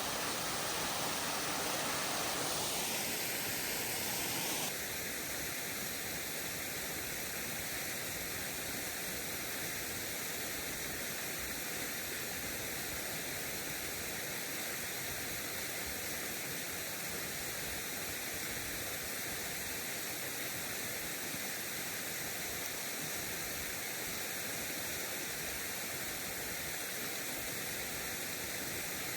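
Small waterfall rushing, a steady even noise of falling water. It drops slightly in level and changes tone suddenly about five seconds in.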